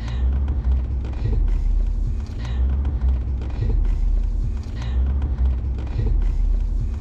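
Inside the cab of a Jeep Gladiator EcoDiesel crawling slowly over a rough trail: the 3.0-litre V6 turbodiesel gives a low rumble with a steady drone, swelling and dipping as the truck works over the uneven ground.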